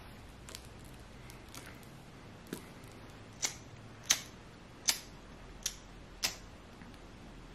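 A series of six small, sharp clicks, a little under a second apart, starting about two and a half seconds in and stopping near the end.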